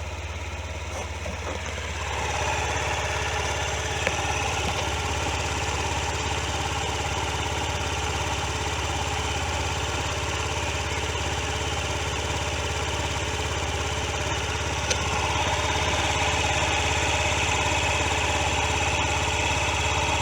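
Honda Zoomer NPS50 scooter's 49 cc four-stroke single-cylinder engine idling steadily after an oil change. It gets louder about two seconds in and again about fifteen seconds in.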